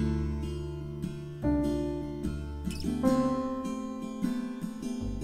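Instrumental background music: a gentle piece of plucked notes that ring and fade.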